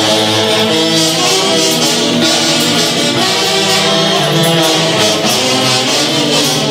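An orquesta típica from Jauja, Peru, playing a dance tune live: held melody notes over a steady rhythmic beat, loud and continuous.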